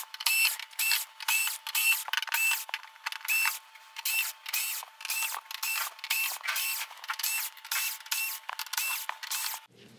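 Black+Decker cordless screwdriver whirring in quick short bursts, about two to three a second, each with a high motor whine, as it backs screws out of a TV's plastic back cover.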